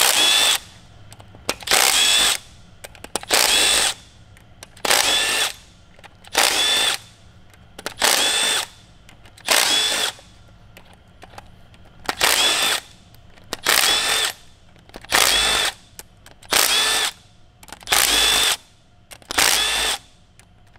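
Milwaukee Fuel cordless drill running in short spurts, about a dozen in a row, roughly one every second and a half, each a whining spin of under a second. It is backing out fastener after fastener from the one-piece cam-cap bridge on the cylinder head of an Audi R8 4.2 V8.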